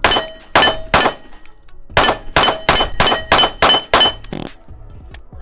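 9mm Glock 19 pistol firing about ten shots: three deliberate shots, a brief pause, then a fast string of seven, about three a second, each with a ringing tail.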